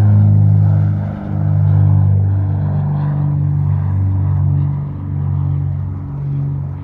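Background music with low, droning held notes that change pitch in steps under a light repeating pulse. It starts to fade out near the end.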